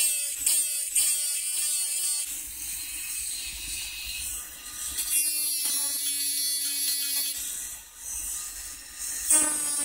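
Handheld rotary engraving tool with a small burr bit running at high speed and cutting into a titanium knife clip. Its whine breaks off and comes back about twice a second at the start and again near the end, and runs more steadily in between.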